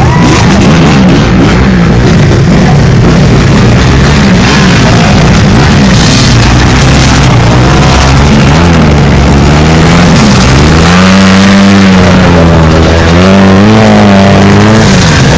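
Dirt bike engines running very loud and close, with the throttle being worked; in the second half an engine's pitch rises and falls again and again as a bike is revved through a mud puddle.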